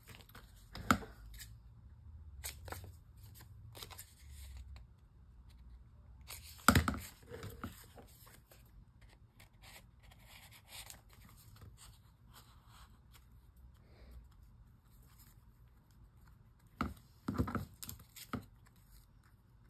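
Paper and craft supplies handled at a work table: scattered short clicks and rustles, the loudest about seven seconds in and a cluster near the end.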